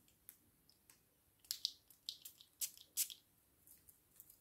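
Perfume sprayed from a small refillable travel atomizer onto a palm: a few short, faint hisses, two together about a second and a half in and two more near the three-second mark.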